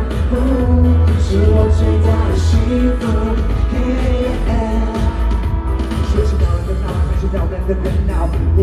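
Mandarin pop song performed live: a male voice singing over a backing track with a heavy, steady bass.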